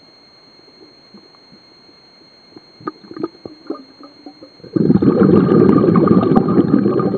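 Scuba diver's exhaled breath bubbling out of the regulator, heard underwater: a loud bubbling rush that starts suddenly about five seconds in. Before it there is only a faint hiss with a few scattered clicks and pops.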